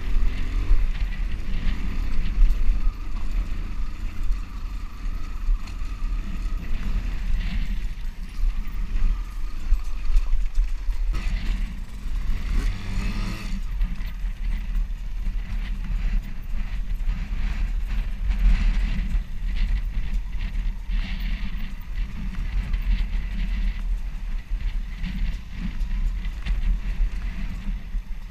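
Motocross bike engine running and revving over a rough dirt trail, heard from a helmet-mounted camera, with a constant deep rumble under it; the revs sweep up about twelve seconds in.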